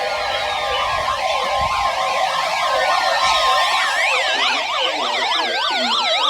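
Several electronic sirens sounding at once, their pitches sweeping quickly up and down, with a few long falling tones gliding down across them.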